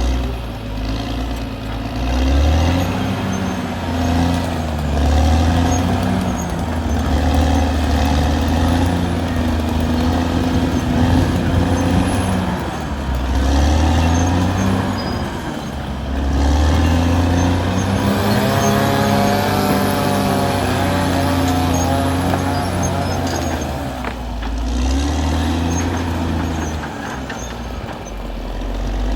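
Caterpillar D6R XL bulldozer's diesel engine working under varying load, its note rising and falling, with a wavering higher whine for a few seconds past the middle.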